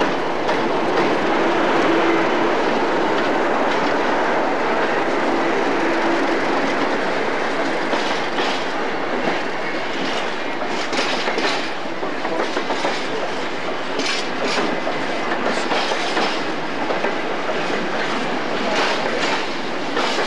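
Class 50 diesel locomotive's English Electric 16-cylinder engine running steadily as the locomotive moves slowly through the station, with rattling clicks of its wheels over rail joints from about eight seconds in.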